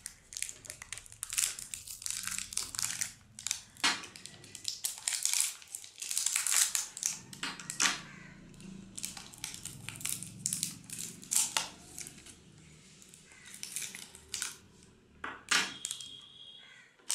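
Plastic crinkling, with quick clicks and rattles, as batteries are handled and fitted into a toy RC helicopter's remote control.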